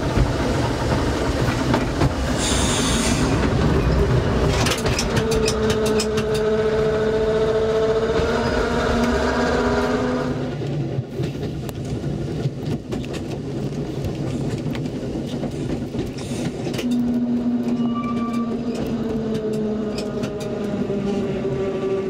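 Seaton Tramway narrow-gauge electric tram car running along the track, heard from the driver's cab: a steady rumble with wheels clicking over the rails and a whine from the drive that rises slightly in pitch. About halfway through the whine fades out, then it comes back twice towards the end.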